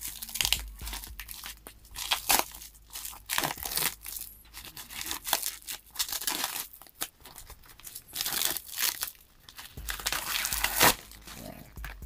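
Clear plastic packaging being crinkled and torn off a cardboard box by hand: irregular crackling and rustling with short sharp tears.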